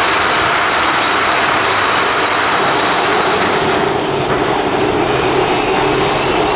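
Mine-train roller coaster cars rolling along the track, a loud steady rumble of wheels on rail. About four seconds in, a steady wheel squeal joins.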